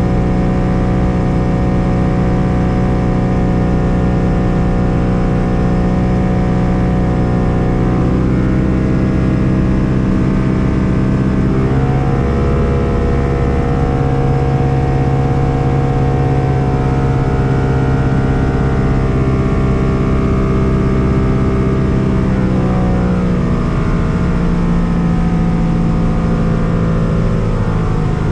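Lake Buccaneer LA-4-200's four-cylinder Lycoming piston engine and pusher propeller running loud and steady. The engine speed drops a little about eight seconds in, rises about four seconds later, and falls again near the end.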